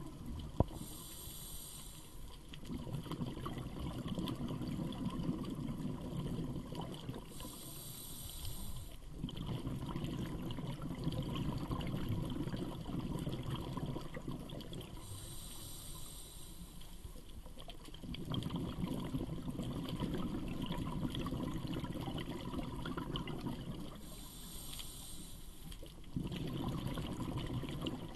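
Scuba diver breathing through a regulator underwater: a short high hiss on each inhale about every eight seconds, each followed by several seconds of rumbling bubbles from the exhaust. A single sharp click just under a second in.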